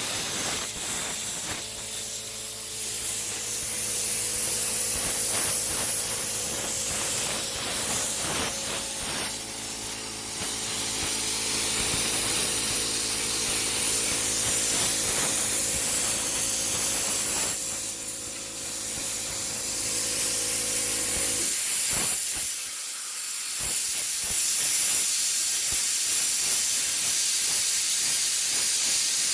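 Plasma cutter's compressed-air jet hissing steadily, with a steady machine hum underneath that cuts off suddenly about twenty-one seconds in while the hiss continues.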